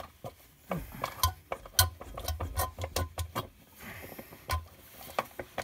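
Hand-operated fluid-transfer pump worked stroke by stroke, giving irregular clicks and knocks, while it pushes the last of the gear oil through a hose into the rear differential, which is already full to the fill hole.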